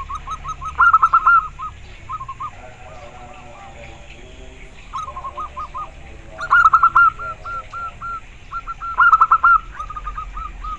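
Zebra dove (perkutut) singing its cooing song: bursts of rapid, short, clipped notes, repeated several times with short pauses between.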